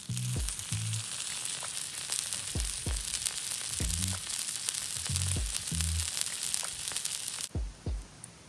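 Food sizzling in a hot pan: a dense, steady hiss with fine crackles that cuts off suddenly near the end. Background music with slow low notes plays underneath.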